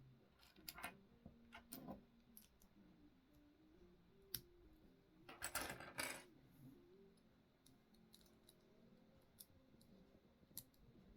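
Small plastic Lego pieces clicking and clattering as they are picked up and handled, in scattered faint clicks with a denser rattle about five to six seconds in.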